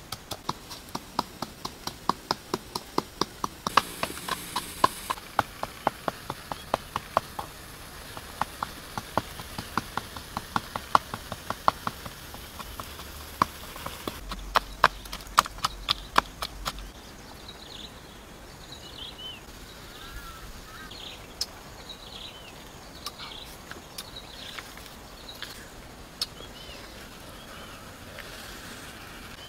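Wooden pestle pounding chillies and salt in a coconut-shell mortar: sharp knocks about two to three a second, stopping a little past halfway. After that come only scattered faint clicks and short high chirps.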